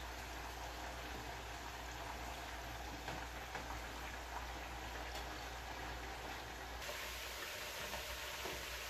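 Beef chunks sizzling steadily as they fry in very hot oil in a skillet, being turned with metal tongs.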